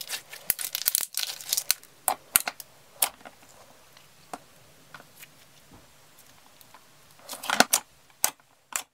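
Thick white slime being squeezed and stretched by hand, crackling and popping with sharp little snaps as air pockets burst. A dense run of pops in the first two seconds, scattered single snaps after, and another cluster about seven and a half seconds in.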